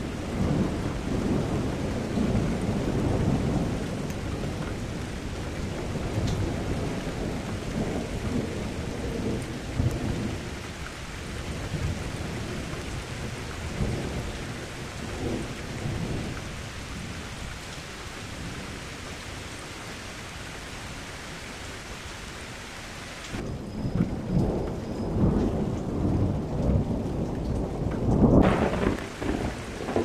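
Thunderstorm: steady rain with thunder rumbling, loudest at the start and again near the end. About three-quarters of the way through, the rain hiss cuts out abruptly for about five seconds, leaving only the low rumble of thunder.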